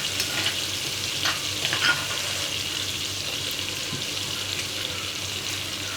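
Masala of onion, garlic and spices frying in oil in a pan as ground tomato paste goes in: a steady sizzle, with a few brief stirring scrapes in the first two seconds.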